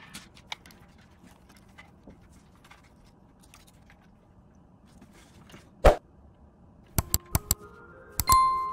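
Hard plastic building-block pieces of a robot model clicking and knocking as it is handled and turned over, with one sharp knock about six seconds in and a quick run of clicks about a second later. Near the end a click is followed by a bell-like ding that rings and fades.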